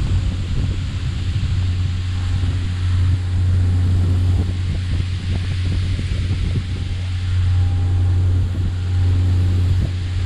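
Fishing boat's engine running with a steady low drone, under a constant hiss of water spray showering the sea surface beside the hull, with wind on the microphone.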